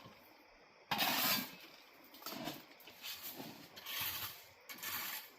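Recoil pull-starter of a gasoline plate compactor being pulled several times without the engine catching; the speaker suspects the tank is out of gas.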